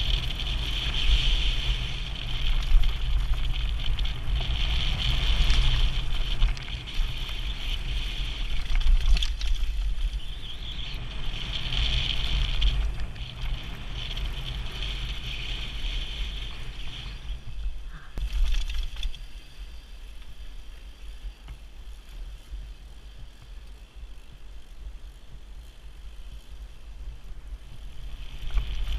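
Mountain bike rolling fast down a dirt and gravel trail: tyre noise and rattle under a heavy rumble of wind buffeting the microphone. It is louder through the first two-thirds and drops off after that.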